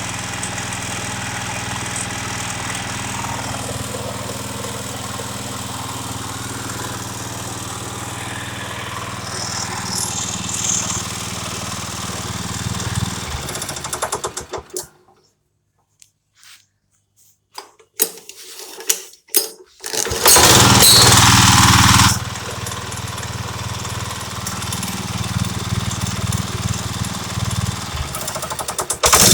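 Robin engine of a concrete cutter running steadily, then shut off about 13 seconds in. A few seconds of quiet follow with a handful of clicks, then the engine starts again about 20 seconds in, running very loud for about two seconds before settling back to a steady run.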